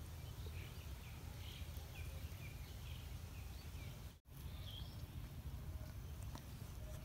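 Outdoor ambience: a steady low rumble of wind on the microphone with faint, short bird chirps scattered throughout. The sound drops out for a moment about four seconds in.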